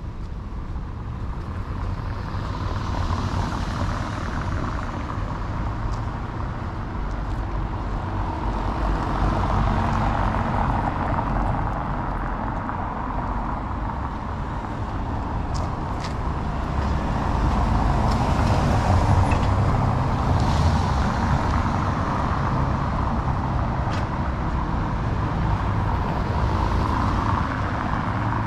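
Road traffic on a paved town street: cars driving past in a continuous noisy rumble that swells twice.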